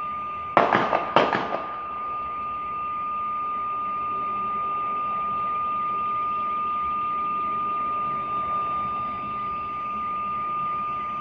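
Two distant gunshots about half a second apart, each echoing briefly across the town. A steady high-pitched tone, like an alarm, sounds throughout.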